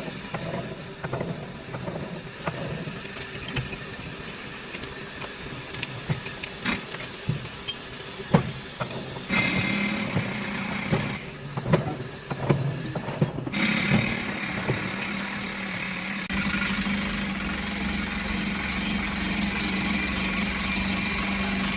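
Scattered metal knocks and clinks, then an engine starting up and running steadily from about nine seconds in. It cuts out briefly, picks up again, and runs louder toward the end.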